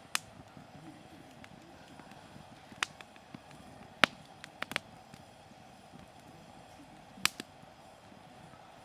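Hardwood firewood burning, giving about six sharp pops over a faint steady background, the loudest about four seconds in and two in quick succession just after it.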